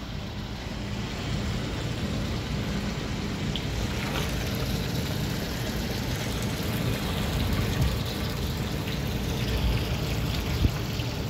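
Water gushing from a hose into a partly filled steel tank, a steady rushing and churning at the hose outlet.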